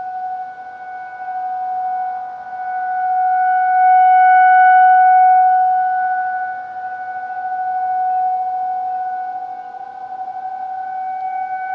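Outdoor tornado warning siren sounding a steady tone for a monthly test, holding one pitch while its loudness swells and fades. It is loudest about four to five seconds in and dips twice before rising again near the end.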